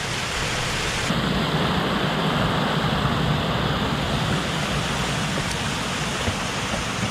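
Fast water pouring over a small weir, a steady rush, the stream running high after days of heavy rain.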